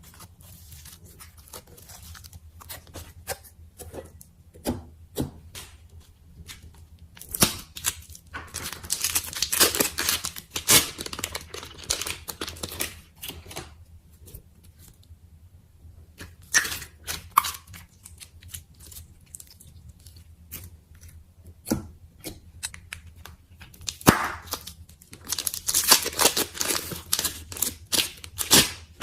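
Slime being poked and stretched by hand: a run of small sticky clicks and pops, coming thick and fast in two longer stretches as the slime is pulled, with a short lull between.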